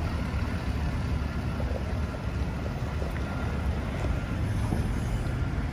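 Nova Bus LFS HEV diesel-electric hybrid transit bus driving slowly into the depot: a steady low rumble from its drivetrain.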